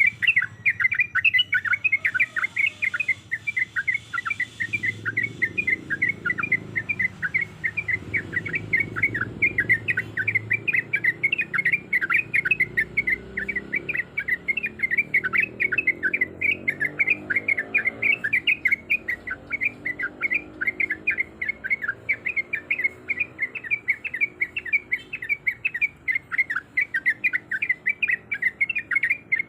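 Yellow-vented bulbul (trucuk) singing a rapid, unbroken string of short chirps, several a second.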